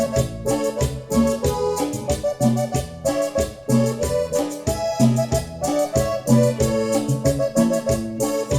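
Instrumental music with a steady beat and a repeating bass line, played back through Klipsch R-51M bookshelf speakers.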